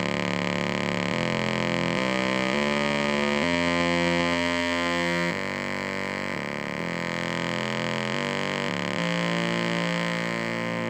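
Analog modular synthesizer drone: a VCO pulse driving two fricko Blip! waveshapers in antiphase, summed into a buzzy sharkstooth wave. The tone changes pitch and timbre in abrupt steps about every second as the shape of both sharkstooths is varied, with a chorus-like shimmer from LFO pulse-width modulation on the VCO.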